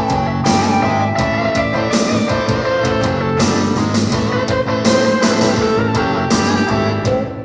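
String music played pizzicato: a quick, busy run of plucked notes over held lower notes.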